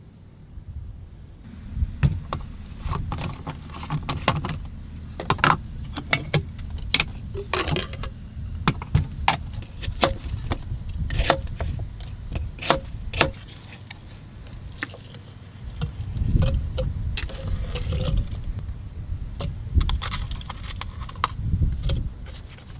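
Many small hard objects clinking and clattering as they are handled, over a low rumble that swells a few times.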